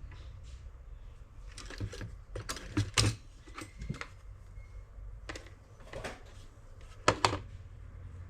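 Hard objects being handled: a scattered series of sharp clicks and knocks at uneven intervals, the loudest about three seconds in and again near seven seconds, over a low steady hum.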